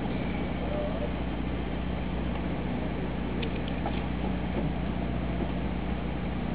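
Steady low hum of a fishing boat's machinery running at anchor, with a few faint ticks about three and a half seconds in.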